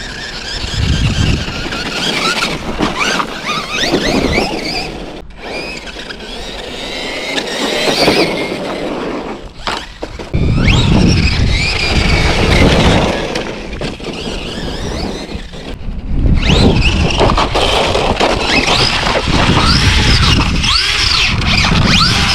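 Losi LMT RC monster truck's brushless electric motor whining, its pitch rising and falling again and again as the truck accelerates and slows, over rumbling tyre and chassis noise. The sound breaks off abruptly and resumes several times.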